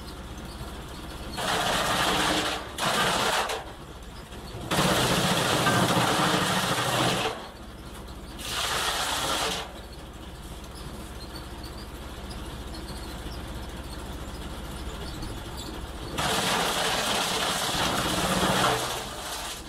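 Eberl SH 20 stationary chopper running with a steady hum, with loud bursts of chopping and crunching each time a bundle of branches is fed in, five times.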